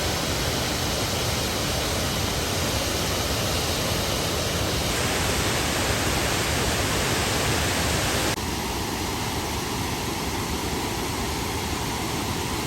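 Josephine Falls waterfall rushing, a steady even roar of falling water. Its tone shifts abruptly about five seconds in and again about eight seconds in.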